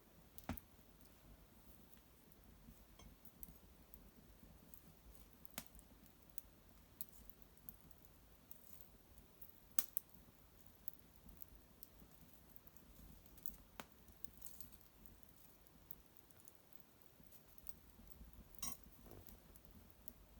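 Small fire of dried maple brushwood crackling faintly in an irori hearth: scattered sharp pops and ticks over near silence, the loudest about ten seconds in. A brief rustle comes near the end.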